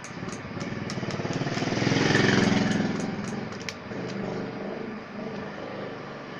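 A motor vehicle engine passing by, swelling to its loudest about two seconds in and then fading away.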